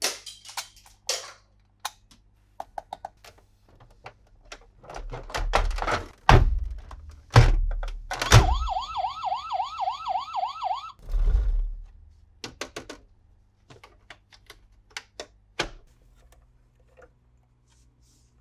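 Hard plastic toy parts clicking and knocking as they are handled, with some rustling of packaging. A little past the middle, a toy vehicle's electronic siren sound effect wails quickly up and down for about two and a half seconds, then cuts off.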